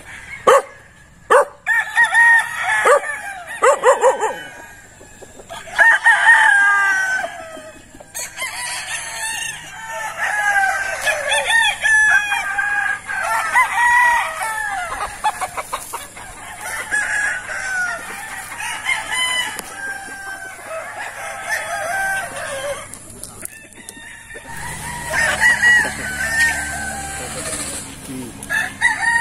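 Roosters crowing again and again, several calls overlapping at times, with a short break a little before the end.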